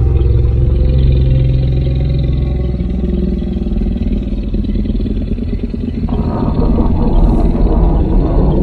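Spinosaurus roar sound effect: a deep, low growl that turns rougher and louder about six seconds in.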